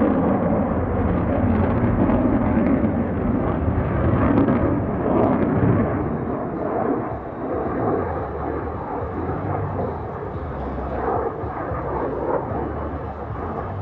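Jet noise from the twin F414 turbofan engines of an F/A-18F Super Hornet during a flying display pass. It is a steady roar, loudest in the first half and easing off a little after about six seconds as the jet moves away.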